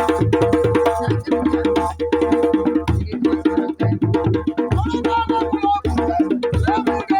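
Traditional music with drums and sharp, wood-block-like percussion keeping a fast, even rhythm. A wavering melodic line, a voice or instrument, comes in about halfway through.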